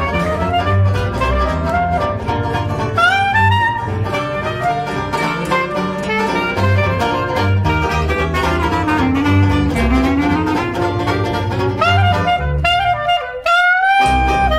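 Traditional jazz trio playing: a clarinet plays a flowing lead line over a strummed banjo and a plucked double bass. Near the end the banjo and bass drop out for a moment, leaving the clarinet alone.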